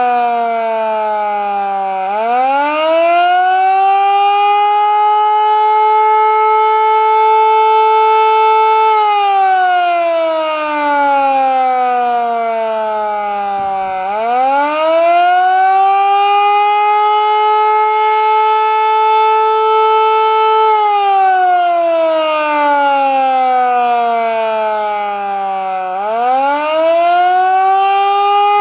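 "Canadian" Federal Signal Model 2 electromechanical siren sounding the attack signal during a test. Its pitch climbs quickly, holds for about six seconds, then winds down over about five seconds before climbing again, a cycle of roughly twelve seconds, repeated about twice.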